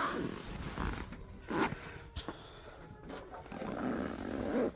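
Rustling and scraping from new camping gear being handled and unpacked, with one louder scrape about a second and a half in.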